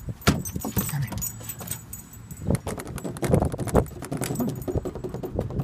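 A puppy's paws clicking and tapping on wooden deck boards as it shifts about, with the jingle of its collar tags.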